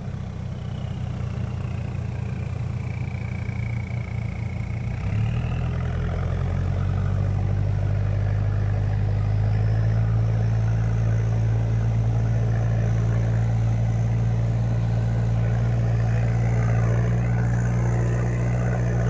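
Toyota Hilux Surf's 2L-TE four-cylinder turbo diesel engine running at steady low revs while driving. It gets a little louder about five seconds in and then holds an even drone. A faint high whistle dips and rises over it.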